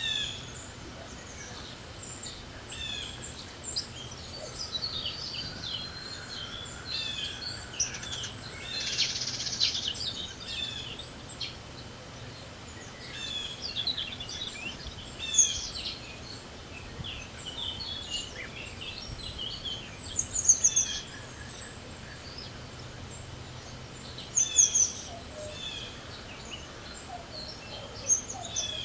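Spring birdsong: several small songbirds chirping and trilling on and off, with a few sharp, louder chirps, over a steady low background of wind noise.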